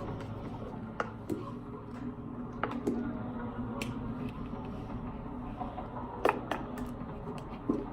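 Sticky homemade slime being handled and worked, giving irregular small snaps and clicks, about six in all, the sharpest about six seconds in, over a steady low room hum.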